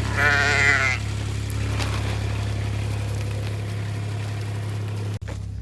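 A sheep bleats once, a wavering call about a second long, over the steady low hum of an idling engine. The hum cuts off suddenly about five seconds in.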